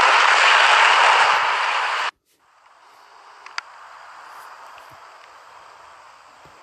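Model Class 90 electric locomotive running fast on a model railway track: a steady rushing rattle of wheels and motor that cuts off after about two seconds, followed by a much quieter hiss with a single click.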